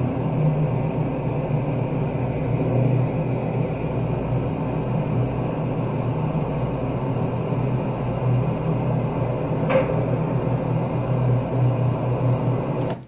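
Playback of a heavily amplified raw room recording: a steady low hum and hiss, with one short, sharp sound about ten seconds in. It belongs to a pattern of a strange sound followed by a knock, which the speaker calls "rum e pau" and puts down to material expanding.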